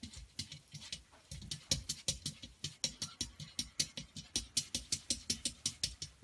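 Quick, steady run of taps, about five or six a second: a cat's paws batting against a mirror.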